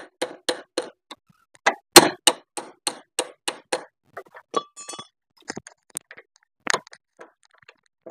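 Steel spanner clicking on the motorcycle kick-start lever's pinch bolt as the bolt is worked loose: a run of sharp metallic clicks, about three a second, for the first four seconds, then a few scattered clinks. The bolt is being undone to take off a kick-start lever that keeps slipping on its shaft.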